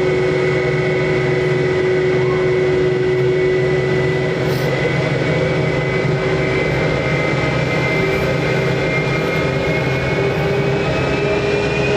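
Jet airliner engines running: a steady noise with a high whine that creeps up in pitch toward the end.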